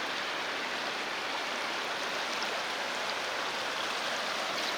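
Steady rush of a river's current, an even unbroken water noise.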